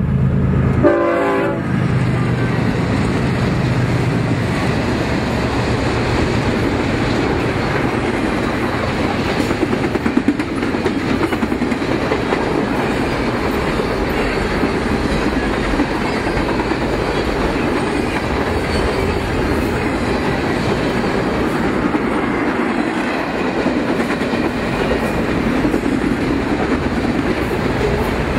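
Double-stack intermodal container train rolling past: a steady rumble and clatter of steel wheels on the rails. A brief horn-like blast, the loudest moment, sounds about a second in.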